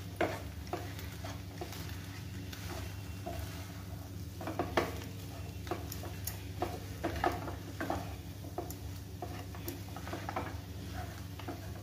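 Wooden spatula stirring and scraping a thick mashed-potato and spice filling in a nonstick pan, in irregular strokes with light knocks against the pan, over a low steady hum.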